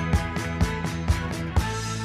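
Background music with a steady beat, about two drum hits a second, under sustained instrument notes.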